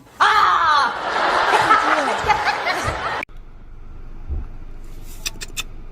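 Several people laughing and shrieking together for about three seconds, then a sudden cut to a much quieter steady background with a few faint clicks.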